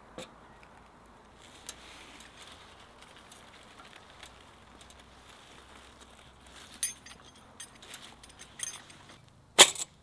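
Small metal clinks and rattles of a kerosene hurricane lantern being lit and handled by its wire bail, over a faint hiss. A single sharp metallic clack about nine and a half seconds in is the loudest sound.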